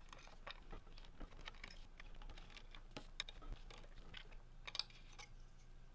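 Faint scattered clicks and ticks of a small precision screwdriver backing out the tiny screws of the Ursa Mini Pro's rear cover plate, with a few sharper clicks.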